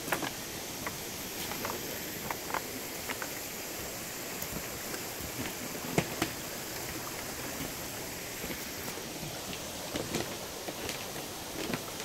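Steady rushing of a shallow stream, with irregular clicks and knocks of footsteps on a bamboo footbridge; the sharpest knock comes about halfway through.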